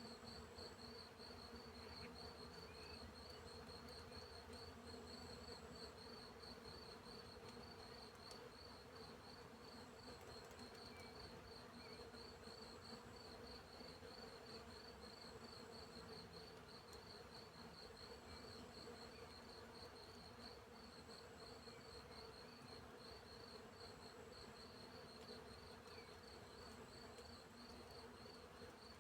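Faint field insects: crickets chirping in a fast, even pulse train, over a steady low buzz of bees.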